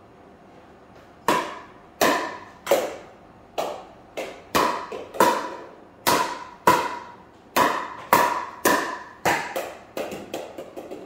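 Pickleball paddles striking a hollow plastic ball in a volley drill: a run of sharp, ringing knocks about one to two a second, coming faster near the end.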